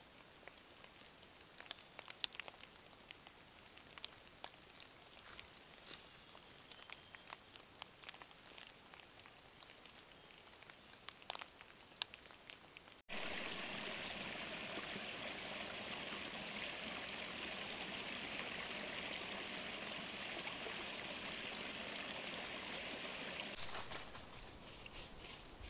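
Trail-camera forest sound: faint scattered ticks and rustles in dry leaf litter, then about halfway through an abrupt jump to a loud, steady, even hiss that runs for about ten seconds before dropping near the end.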